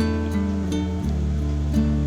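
Background music: acoustic guitar plucking and strumming over a steady bass line that changes note about a second in.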